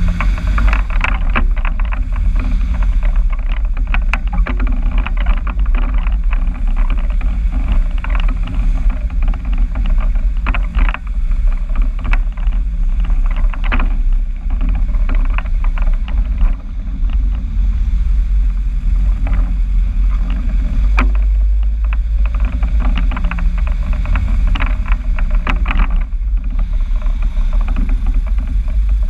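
Vehicle engine running through a newly fitted exhaust: a steady deep rumble, with frequent short clicks and rattles over it.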